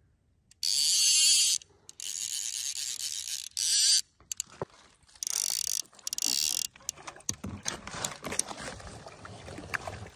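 A fly reel's ratchet chattering in four or five bursts of half a second to a second and a half each, as line runs on and off the reel while a hooked trout is fought. After that come short irregular splashes and clicks as the fish thrashes at the surface beside the landing net.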